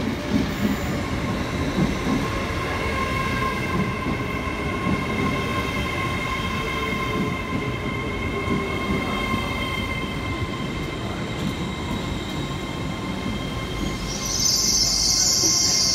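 LNER Azuma high-speed train running past along the platform. Its wheels give a steady rumble with irregular clatter, under a steady high-pitched whine. Near the end a loud hiss sets in.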